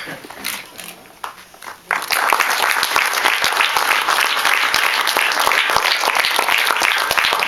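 Audience applauding: a few scattered claps, then the whole crowd breaks into sustained applause about two seconds in.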